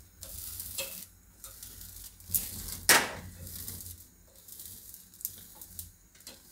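Wheat-flour papad crackling and hissing in spurts as it roasts and crisps over a gas-stove flame, turned with metal tongs, with one sharp click of the tongs just before three seconds in.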